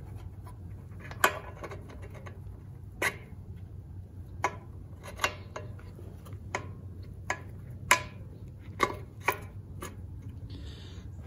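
Light metal clicks and clinks as a low/reverse band lever and its pivot pin are worked into an aluminium 904 TorqueFlite transmission case: about a dozen sharp taps at uneven intervals, with a brief soft rub near the end.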